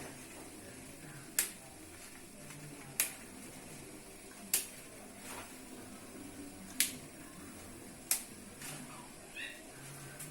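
A series of sharp, short clicks or taps, five clear ones spaced irregularly a second or two apart with a few fainter ones between, over a faint low hum.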